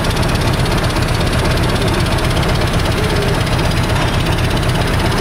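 Steady interior noise inside a carriage of a Siemens C651 MRT train: a constant low hum under a dense hiss.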